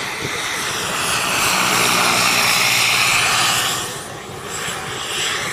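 Turbine-powered radio-controlled scale Bell helicopter flying past: a high turbine whine over the rotor noise. It grows louder to a peak in the middle, then fades about four seconds in.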